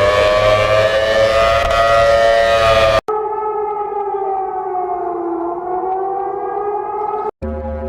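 Civil defense sirens spliced together: one winds up, rising in pitch, then cuts off abruptly about three seconds in. A second siren tone takes over, sagging in pitch and climbing back, before another abrupt cut near the end to a steady horn-like chord.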